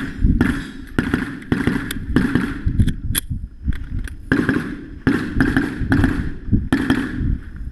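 Pistol gunfire: a string of sharp shots, roughly two to three a second, each trailed by an echo, with a short pause about three seconds in before the shooting resumes.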